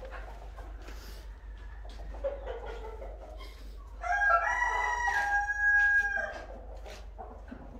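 A rooster crows once, a long call of a little over two seconds starting about four seconds in, with fainter short calls from the birds before it.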